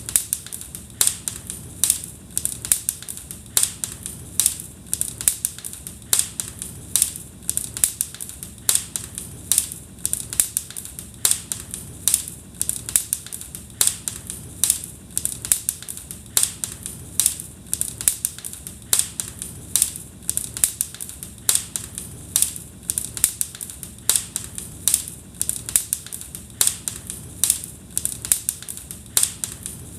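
Fire in a fireplace crackling: a continuous run of sharp pops and snaps, several a second, over a low hiss.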